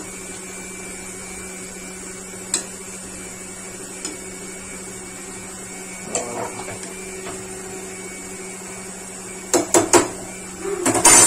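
A metal spoon clinking against the rim of an aluminium pressure cooker while stirring mutton curry: a few single taps, then two quick runs of louder clanks near the end, over a steady low hum.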